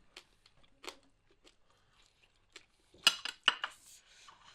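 Cutlery clinking and scraping on plates while eating: a few faint scattered clicks, then a quick run of louder clinks about three seconds in.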